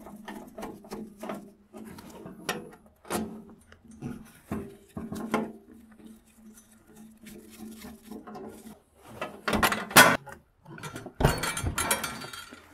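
Screwdriver scraping and clicking against the steel sheet-metal case of an old arc welder as a part is worked loose, with a string of small taps. Near the end come louder metal clatter and rattling as loose parts are handled.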